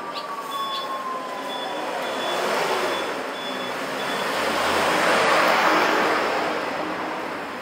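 Street traffic: a car drives past close by, its tyre and engine noise swelling to a peak about five seconds in and then fading. A faint high-pitched beeping repeats during the first few seconds.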